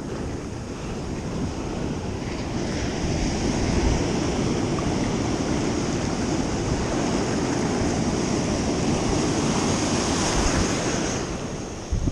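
Ocean surf washing in around a microphone held at the water's edge: a continuous rush of breaking waves and foam that builds after a couple of seconds and eases near the end.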